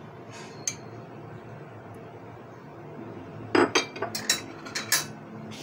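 A metal spoon and glass bowls clinking: a quick run of sharp, ringing knocks about three and a half seconds in, as the dishes are set down and picked up. A small single click comes earlier, over a faint steady background hum.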